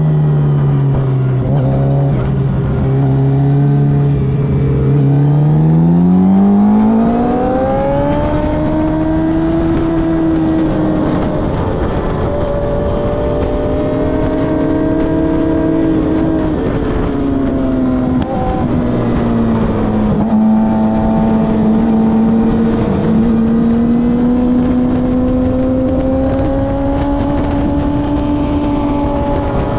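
Onboard motorcycle engine at track speed, with wind rushing over the microphone. It runs low and steady at first, climbs sharply in pitch about five seconds in as the bike accelerates, drops in pitch between about sixteen and twenty seconds in as it slows, then rises slowly again.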